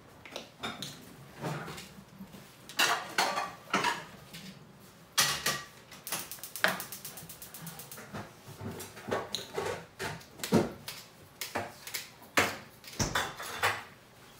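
Kitchen clatter of dishes, pans and utensils being handled: a string of separate clinks and knocks. In the middle comes a quick run of even ticks lasting about two seconds.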